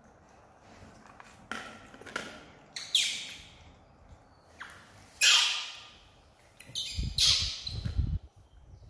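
Macaque screaming: about five short, shrill, high-pitched cries, the loudest about five seconds in. Low rumbling knocks sound near the end.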